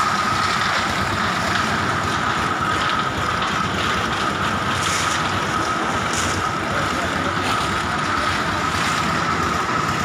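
Steady machine noise with a constant high whine, running evenly throughout.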